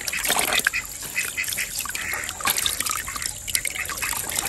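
Water splashing and sloshing in a plastic basin as raw chicken pieces are rinsed by hand, with a thin stream of tap water running in. It comes as irregular wet splashes and squelches.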